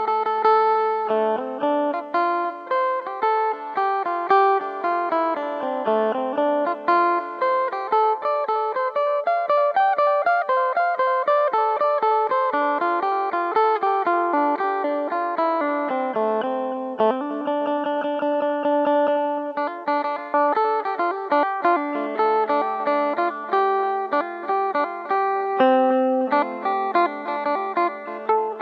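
Two-string phin, the northeast Thai plucked lute, played in a fast melody of plucked notes, with some pitches held underneath.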